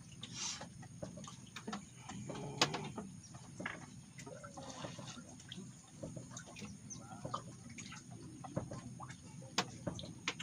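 Scattered clicks and knocks with brief bird-like calls.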